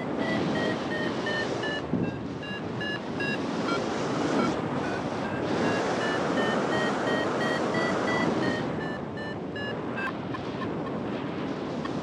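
Flight variometer beeping rapidly, about three short beeps a second, its pitch sinking a little and then rising again. This is the audio tone it gives while the glider is climbing in lift. Underneath runs a steady rush of wind on the microphone. The beeps pause for about a second near the end, then go on more irregularly.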